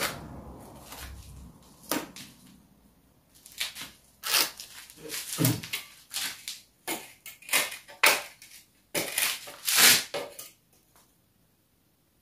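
Brick masonry work: a trowel scraping clay mortar along the brick joints and tapping the bricks, with knocks from a metal straightedge laid across the course. A string of irregular scrapes and sharp knocks.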